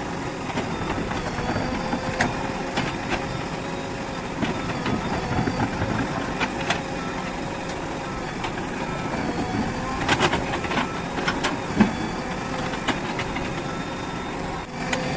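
Heavy diesel machine's engine running steadily under a held tone, with scattered sharp knocks, a cluster of them about two-thirds of the way in.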